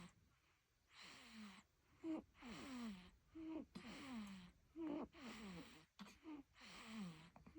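A sleeping baby breathing noisily, like snoring. Each rushing breath ends in a short grunting sound that falls in pitch, repeated about every second or so.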